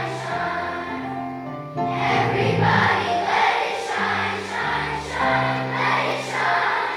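A choir singing slow, held chords that change every second or so.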